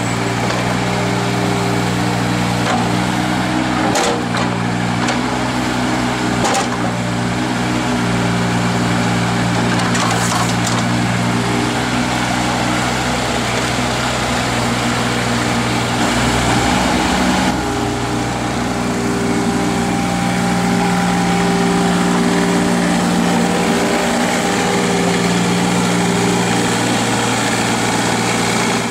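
2006 Eurocomach 3-tonne mini excavator's diesel engine running steadily while the machine slews and works its hydraulics, with a couple of short knocks about four and six and a half seconds in. The engine note wavers briefly a little over halfway through, then settles again.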